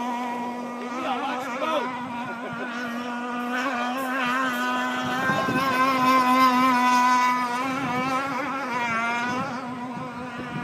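Hydroplane's engine running at speed across a pond: a steady high-pitched buzz with many overtones, wavering in pitch now and then as the boat runs.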